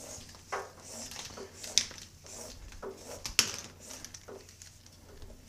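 Electrical cable and plug connector being handled against the surface grinder's base: rustling with a few sharp clicks and knocks, the loudest a little under 2 seconds in and just over 3 seconds in.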